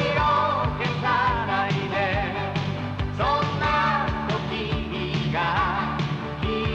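Closing theme song: a voice sings phrases over a band with a steady beat.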